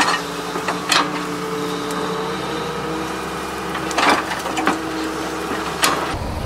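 Toy vehicles being handled, giving about four knocks and clatters spread over several seconds above a faint steady hum.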